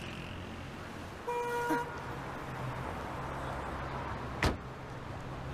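A car horn gives one short beep about a second in, over the low steady running of a car engine. Near the end comes a single sharp thud, which is the loudest sound.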